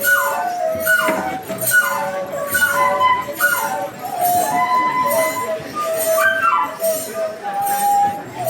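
Traditional Kenyan wind instrument playing a melody with quick falling slides between notes, over njuga jingle bells shaken in a steady beat about twice a second.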